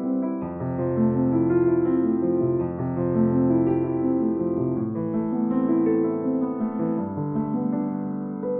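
Background piano music: slow, held chords changing every second or so.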